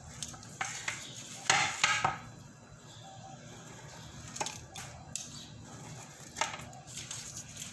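Pizza-cutter wheel cutting through a baked cake, a series of short scraping crunches and clicks, loudest about a second and a half in.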